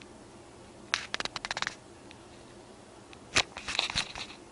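Handling noise on an iPod's built-in microphone: two short bursts of quick scratchy clicks, about a second in and again past the three-second mark, as something rubs and taps against the device.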